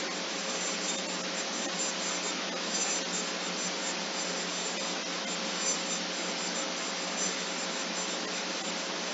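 Steady hiss with a low, even hum underneath, unchanging throughout, with a few faint scattered clicks.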